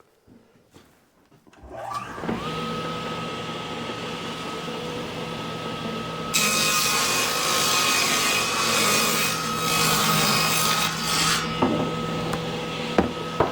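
Electric saw's induction motor starting about two seconds in and coming up to a steady whine. About six and a half seconds in, the blade cuts through a wooden board for about five seconds with a loud, rasping hiss, then runs free again.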